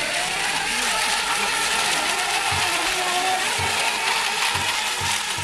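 Several electric RC racing boats running together on a course: a steady high whine and hiss of motors and spray, with lower tones that rise and fall as boats pass, and a few short low thumps.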